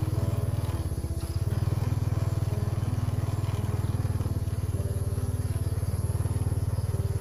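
Small motorcycle engine running steadily under way, its fast, even exhaust pulses the loudest sound.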